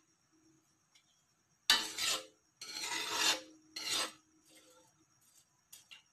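Metal ladle scraping and stirring rice and water in an aluminium wok: three loud rasping scrapes starting about two seconds in, then a few fainter ones.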